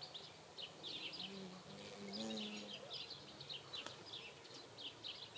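Faint evening countryside ambience: short high chirps repeating in quick clusters, typical of insects or small birds in a summer field, with a faint low drawn-out call about two seconds in.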